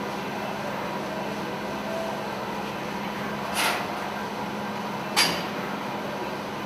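Steady hum of slurry-processing plant machinery, with a constant low tone. A brief burst about three and a half seconds in and a sharp knock about five seconds in.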